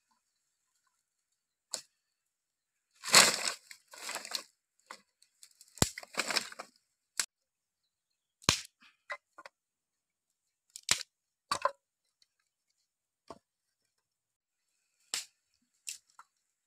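Dry sticks and branches snapping and clattering as they are broken and dropped onto a pile for a cooking fire. About a dozen separate sharp cracks come with gaps between them, the loudest a longer clattering crash about three seconds in.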